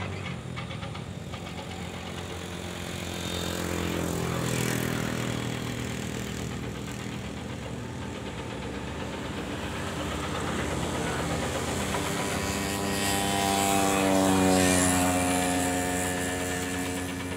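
Motor vehicle engines running, rising and falling as vehicles pass. The loudest passes about fourteen seconds in, its pitch sliding as it goes by.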